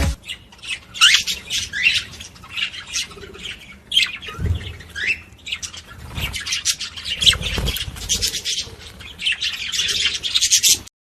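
Budgerigars chattering and squawking: a steady stream of quick, high chirps and short rising and falling squeaks, which cuts off suddenly near the end.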